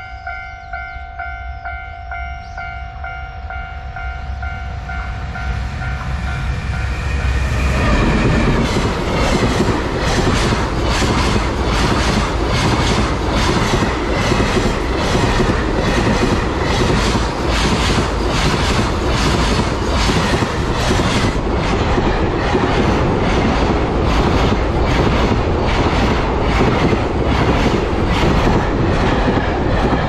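Level-crossing alarm ringing as a container freight train hauled by an EF210 electric locomotive approaches, then the train passes close by from about eight seconds in. The wagons' wheels click steadily over the rail joints as the long string of container wagons goes by.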